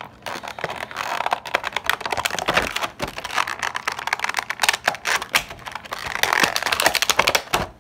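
Clear plastic blister tray of a toy package crinkling and crackling as it is handled and pulled apart: a continuous run of small sharp clicks and crackles.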